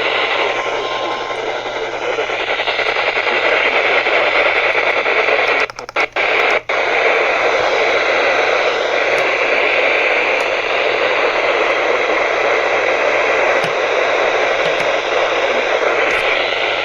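Loud steady static hiss from a software-defined radio receiver tuned to the 162 MHz weather radio band with no clear signal. A faint steady tone stops about a second in, and the hiss cuts out in several brief dropouts about six seconds in.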